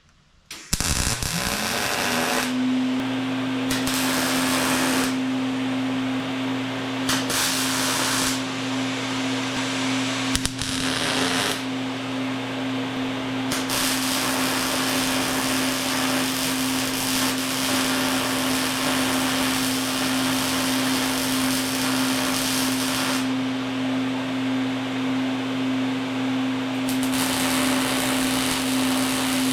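Angle grinder spinning up about a second in, then running at a steady high speed while grinding steel in spells, its harsh hiss rising and dropping as the disc goes on and off the metal.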